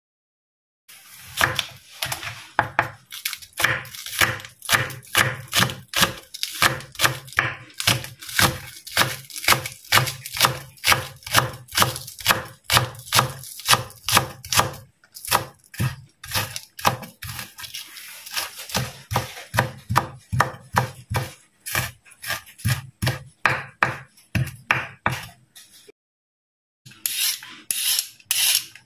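Kitchen knife chopping spring onions on a wooden cutting board, steady strokes about three a second. After a short pause near the end, a peeler scrapes strips off a carrot.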